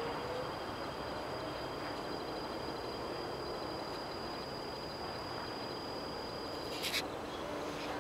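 Steady outdoor railway-station background noise with a thin, high-pitched whine running through it, and a short clatter about seven seconds in.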